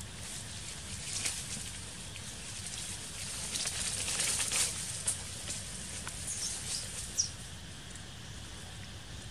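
Dry leaf litter crackling and rustling as a macaque forages through it by hand, busiest about four seconds in. A couple of short high bird chirps come about seven seconds in.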